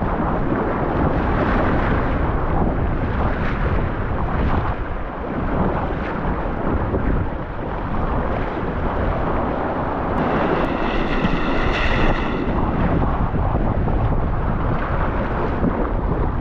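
Strong wind buffeting the microphone over water rushing and splashing against the hull of a Hobie Tandem Island sail kayak moving fast through rough, choppy sea. A brief high-pitched whine sounds over it about two-thirds of the way through.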